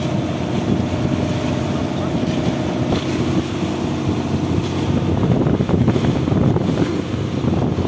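Fishing boat's engine running steadily under way, with wind noise on the microphone.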